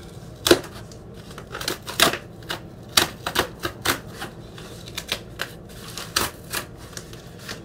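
Cardboard record mailer being torn open by hand: the cardboard rips in an irregular run of short, sharp cracks, several a second.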